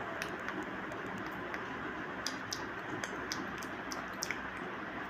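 Steady room noise with scattered light clicks and taps, more of them in the second half.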